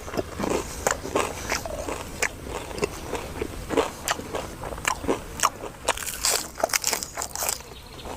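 Biting and chewing crispy deep-fried pork leg: a run of sharp, irregular crunches with chewing between them.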